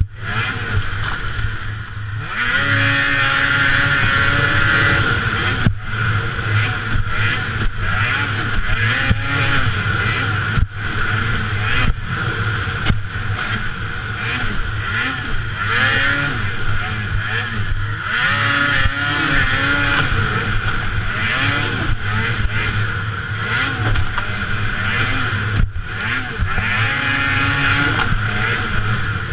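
Snowmobile engine at racing speed, its revs rising and falling again and again as the throttle is worked over the snowcross track, with a few brief cut-outs.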